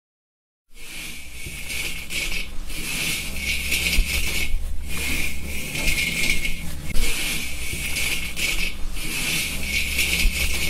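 Hands working tea leaves in a hot firing wok (pan-firing Huangshan Maofeng): a dry rustling scrape with a hiss, coming in repeated strokes over a steady low hum. It starts after a moment of silence.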